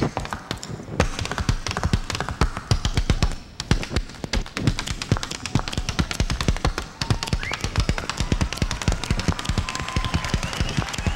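Fast, rhythmic footwork of tap shoes and Irish hard shoes striking a wooden stage floor in a percussion dance duel, with brief lulls about three and a half and seven seconds in.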